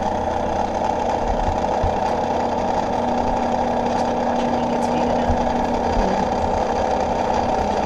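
Mr. Coffee Cocomotion hot chocolate maker running steadily, its motor spinning the magnetic stirrer in the base as it heats and mixes the milk.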